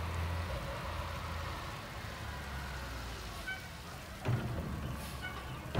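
Mack LR garbage truck running and slowing to a stop, a steady low engine sound, with a sudden clunk about four seconds in and a louder one at the very end.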